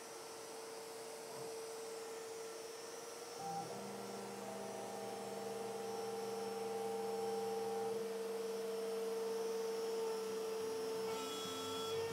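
Shop-built CNC router running: the compact router spindle gives a steady high hum. About three and a half seconds in, the stepper motors that drive the axes join with a whine that changes pitch as the head moves.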